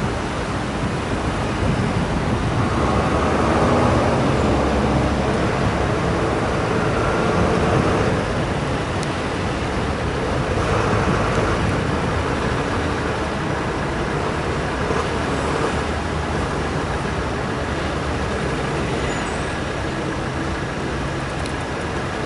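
Steady road traffic noise from engines and tyres of passing vehicles, swelling a few times as vehicles go by.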